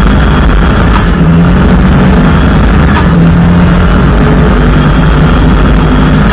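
Mitsubishi Lancer EX turbo rally car's turbocharged four-cylinder engine running hard at speed on a gravel road, loud and steady, with tyre and gravel noise and a couple of sharp clicks.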